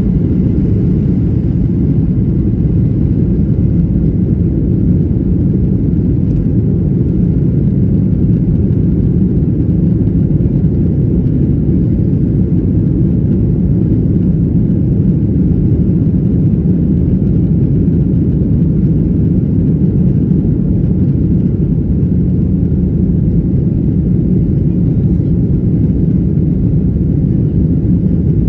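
Boeing 737-800's CFM56-7B turbofan engines at takeoff thrust, heard inside the cabin during the takeoff roll and climb-out: a steady, loud, low-pitched engine noise with no breaks.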